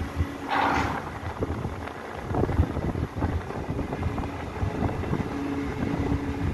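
Port crane machinery running while its spreader hoists a shipping container. A steady hum stops about a second in and returns near the end. Wind rumbles on the microphone, and a short hiss comes about half a second in.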